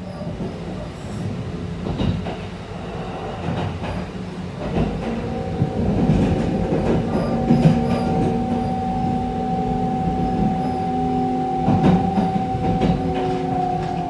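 Interior running sound of a Kintetsu 23000 series Ise-Shima Liner motor car with a Mitsubishi GTO VVVF inverter: the steady electrical whine of the inverter and traction motors comes in about five seconds in and starts to dip in pitch near the end. Under it are the rumble of the wheels and occasional rail-joint clacks.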